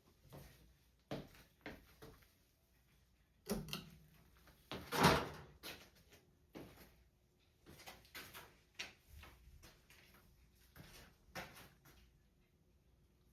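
Casablanca Concentra ceiling fan running on medium speed, a faint steady hum, with scattered short knocks and clicks. The loudest knock comes about five seconds in.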